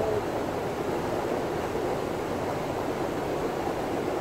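Steady, even rushing of flowing river water, with no breaks or changes.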